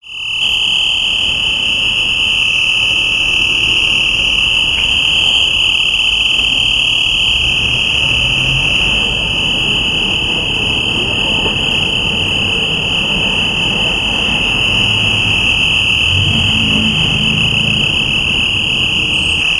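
A loud, steady high-pitched electronic tone, held unbroken and unchanging, over low street traffic noise.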